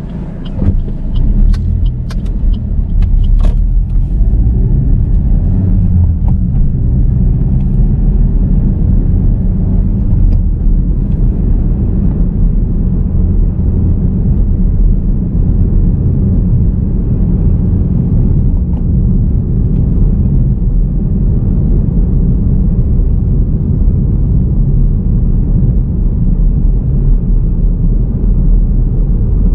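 Car driving on a road: a steady low rumble of engine and tyre noise, with a few sharp clicks in the first few seconds.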